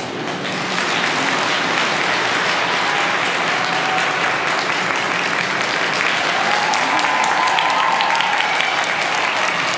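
Arena audience applauding and cheering for a skater just introduced, with high held cheers rising over the clapping about three seconds in and again past the middle.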